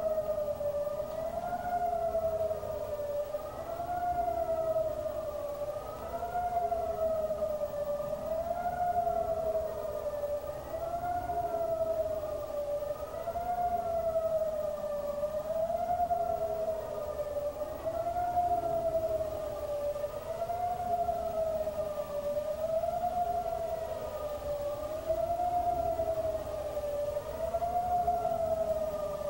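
A siren-like wailing tone that rises and falls smoothly, about once every two seconds, with fainter higher overtones over a low background hiss.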